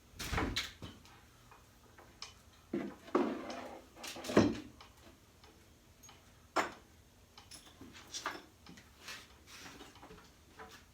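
Scattered knocks and clunks of chainsaw parts being handled and set into a small parts cabinet, with the loudest knocks near the start, around three to four seconds in, and once more a little later.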